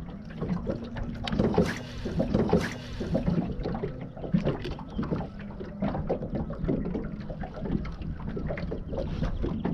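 Water lapping and slapping irregularly against a fishing boat's hull, with a steady low hum that comes and goes.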